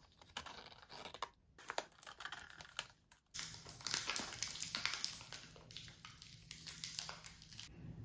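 Plastic film wrappers on gift bath additives crinkling as they are handled, in quick irregular crackles that grow louder about three seconds in.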